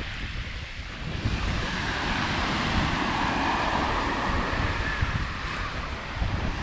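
Sea waves washing up the beach: a hiss of surf that swells about two seconds in and slowly fades, with wind buffeting the microphone.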